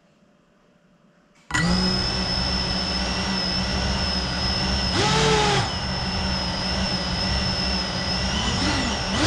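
FPV quadcopter's brushless motors spinning up suddenly about a second and a half in, then idling with a steady whine while the drone sits armed on the floor. There is a short throttle blip about five seconds in, and the pitch starts to climb at the very end.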